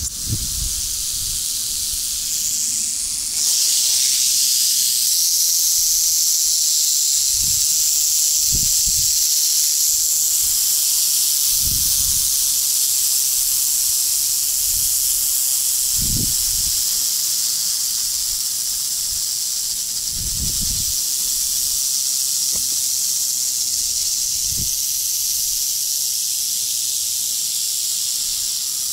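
Rattlesnakes rattling their tails in a steady, high buzz, a defensive warning; it grows louder about three and a half seconds in. A few dull, low thumps come at intervals.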